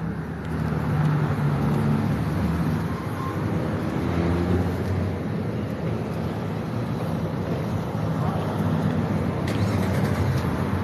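City street traffic: a steady hum of passing and idling vehicles with a low engine drone.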